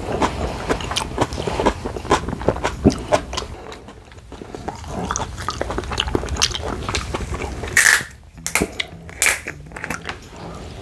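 Close-miked chewing of grilled beef steak: wet, irregular mouth clicks and smacks. About eight seconds in comes a short, loud burst of hissing noise.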